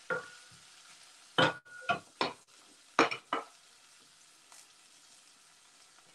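Olive oil frying with olives, garlic and chili in a stainless steel saucepan, a faint sizzle. A spoon stirs and knocks against the pan about six times in the first three and a half seconds, and these knocks are the loudest sounds.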